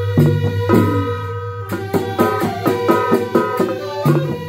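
Balinese gamelan gong suling: several bamboo suling flutes play a held, interweaving melody over frequent kendang drum strokes and a steady deep low tone.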